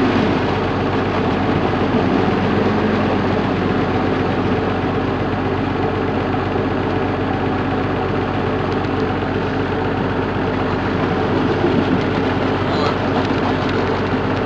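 An off-road 4x4's engine running steadily at low revs as the vehicle crawls through a muddy, water-filled rut.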